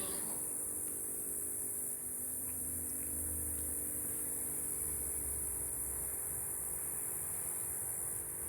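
Steady high-pitched insect chorus, typical of crickets, with a low steady hum underneath and a faint low rumble that swells and fades in the middle.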